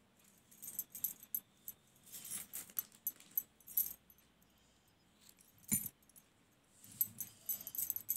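Scissors and a steel crochet hook handled on a cloth-covered surface while yarn is cut: light metallic clicks and jingles with yarn rustling, and one sharper click a little past the middle.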